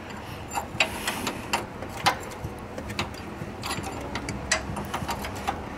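Irregular metallic clicks and taps of a wrench working a crusty power steering line fitting on the steering gear loose.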